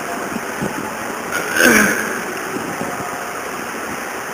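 Steady hiss of background noise, with one brief sound whose pitch falls, about a second and a half in.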